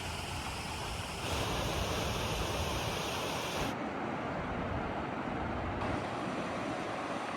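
Steady outdoor rushing noise with no distinct events, its character changing abruptly a little over a second in, at about four seconds and near six seconds.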